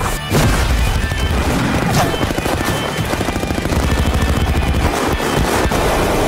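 Trailer score with a long stretch of rapid automatic gunfire through the middle, the shots coming several a second.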